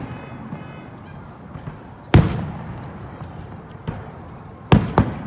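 Fireworks shells bursting overhead: a loud bang about two seconds in, a smaller one later, then two bangs in quick succession near the end, each trailing off in an echo.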